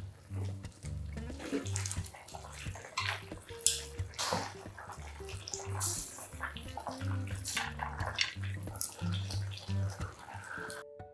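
Pot of ramen bubbling at the boil, with wet splashing and sloshing as chopsticks lift and stir the noodles. Light background music with a repeating bass line underneath; everything cuts off suddenly near the end.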